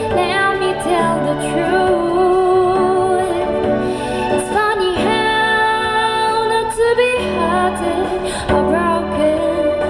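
A woman singing a slow song with instrumental accompaniment, her voice gliding and holding notes over steady low chords.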